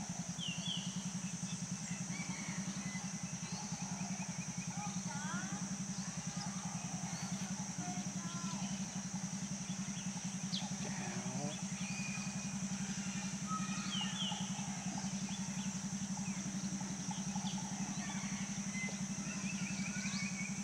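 A steady low mechanical hum with a fast, even pulse, over a steady high-pitched drone, with a few faint, scattered bird chirps and a short trill near the end.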